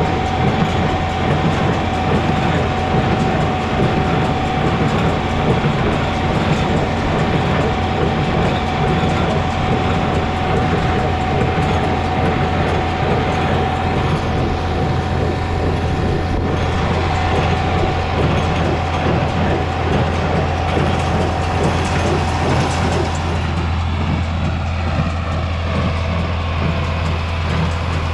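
John Deere 4020 tractor engine running steadily under load while pulling a hay baler, with the baler's mechanism working over the engine note. The sound changes slightly about 23 seconds in.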